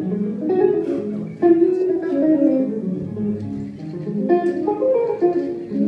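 Live jazz: a hollow-body electric jazz guitar plays plucked single notes and chords over an upright double bass.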